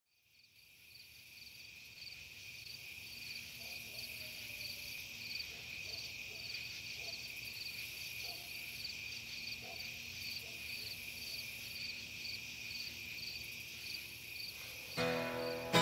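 Crickets chirping: a steady high trill with an evenly pulsing chirp above it, fading in at the start. About a second before the end, an acoustic guitar comes in.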